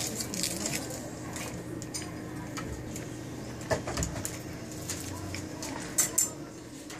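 Scattered light metallic clicks and clinks of door-lock hardware being handled and fitted, the sharpest a quick pair of clicks about six seconds in, over a steady low hum.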